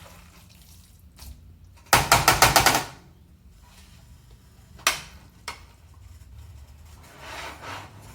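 A cooking utensil clattering against the pan while stir-frying fried rice: a quick run of about eight sharp strokes about two seconds in, then a couple of single knocks and a softer scrape near the end.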